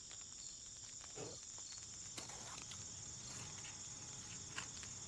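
Crickets chirring in a faint, steady, high-pitched drone, with a few faint ticks.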